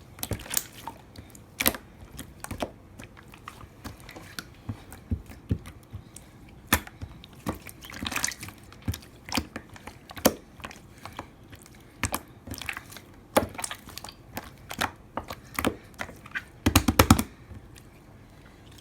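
Slime being pressed and squeezed by hand, giving irregular wet clicks and pops, with a quick flurry of pops near the end.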